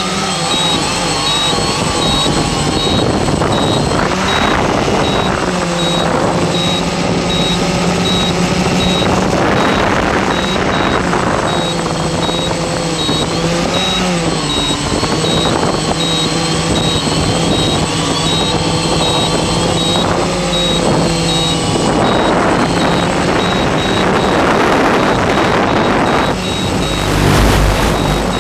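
Octocopter's electric motors and propellers whining in flight, picked up by the onboard FPV microphone. The pitch drifts up and down with throttle, and gusts of wind noise swell over it several times, loudest near the end. A high-pitched tone pulses steadily throughout.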